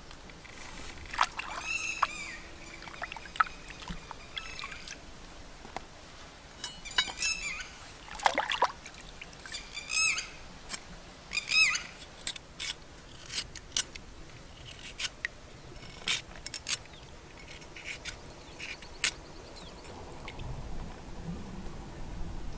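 Birds calling in short chirps several times, over a scatter of sharp clicks and taps from food being handled and cut with a cleaver.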